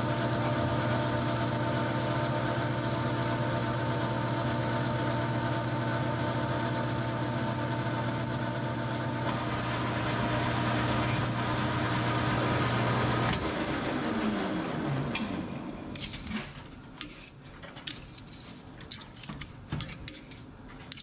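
Metal lathe running under cut, turning down a TH400 transmission output shaft: a steady motor hum with a high hiss from the cutting. The high hiss drops out about nine seconds in, the lathe shuts off at about thirteen seconds and spins down with a falling whine, and then come scattered clinks and rattles of steel chips being pulled off the work.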